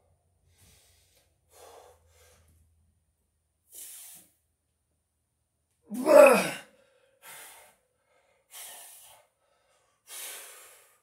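A man breathing hard in short, sharp exhales while doing pull-ups, with one loud strained grunt about six seconds in as he pulls up to the bar.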